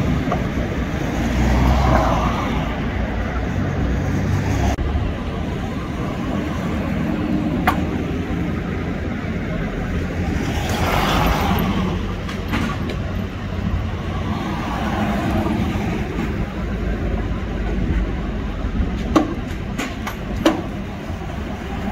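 Street traffic outdoors: a steady low engine rumble with cars passing now and then. A few sharp knocks stand out, one about a third of the way in and two close together near the end.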